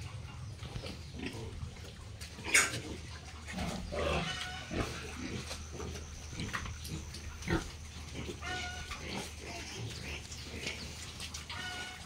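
Pigs calling, with short high-pitched squeals about four seconds in and twice more later. Two sharp knocks stand out, the louder one early on and another about halfway through.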